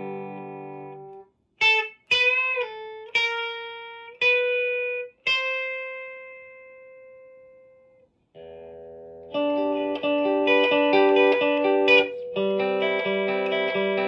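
Electric guitar, a Telecaster with a Lindy Fralin High Output bridge pickup, played through a Marshall DSL-1 amp on its classic gain channel. A chord rings out and fades. Then come several single picked notes with string bends, the last sustaining for a few seconds, and from about nine seconds in a steady rhythmic pattern of picked chords.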